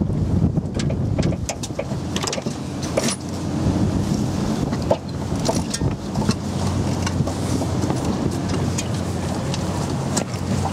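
Wind buffeting the microphone aboard a sailboat under way, over a steady low drone, with scattered clicks and knocks from the boat.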